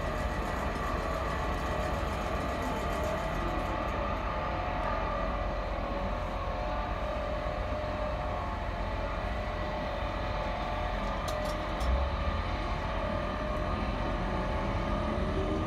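Class 455 electric multiple unit humming steadily at the platform, then starting to pull away, with a rising whine from its traction equipment near the end. One short thump about twelve seconds in.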